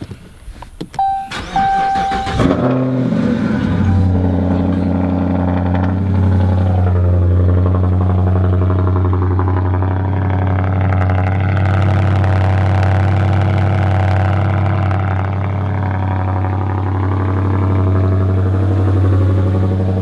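Two short chime tones, then a Dodge Challenger's engine cranks and fires on a cold start after sitting for about a week. It runs fast briefly, then settles into a steady idle about four seconds in.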